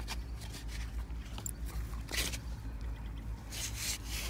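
Digging into a dry, packed earth bank: several short scrapes of a tool and crumbling soil, the loudest about two seconds in and near the end, over a low steady rumble.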